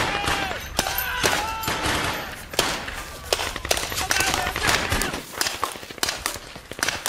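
Paintball markers firing in irregular strings of sharp pops, several a second, from more than one gun.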